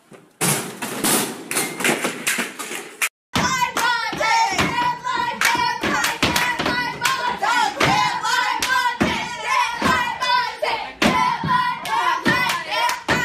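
A short stretch of loud banging and noise. After a brief cut come rhythmic stomps and claps, about two to three a second, from dancers jumping on classroom desks, with voices singing along.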